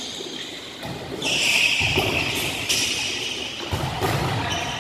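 Volleyballs being hit and smacking the court floor during a team drill: several sharp smacks, one to two seconds apart. A loud hissing noise starts about a second in and lasts about a second.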